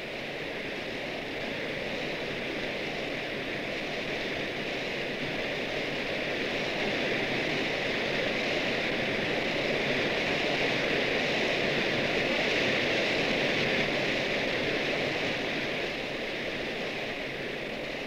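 Waterfall: a steady rush of falling water, swelling gradually louder toward the middle and easing off near the end.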